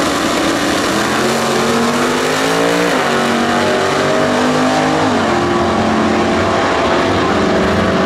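Two Camaro drag cars, a supercharged first-generation and a fourth-generation, accelerating hard side by side down the strip. The engine pitch climbs through each gear and drops sharply at upshifts about three and five seconds in, then climbs again.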